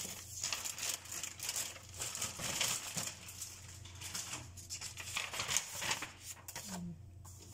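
Plastic packaging crinkling and a paper sheet rustling as they are handled and pulled out of a cardboard box, in irregular scrunches.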